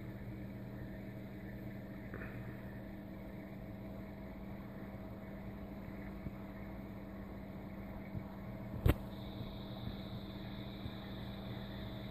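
Steady low mechanical hum of an aquarium air pump running a sponge filter, with one sharp click about nine seconds in.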